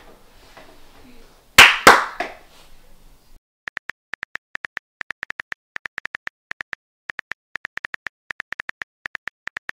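Two sharp thumps about a second and a half in, then the clicks of an iPhone's on-screen keyboard as a search is typed: a quick, uneven run of short, identical high clicks over dead silence.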